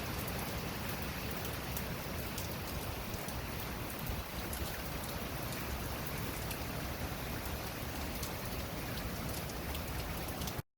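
Hurricane rain falling steadily, a constant hiss dotted with fine drop ticks. The sound cuts out completely for a split second just before the end.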